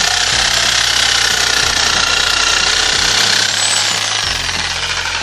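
Crafix electric reciprocating saw running at full speed, its new blade sawing through a thick bamboo pole with a loud, steady rasp. The sound eases slightly in the last second or two as the cut finishes.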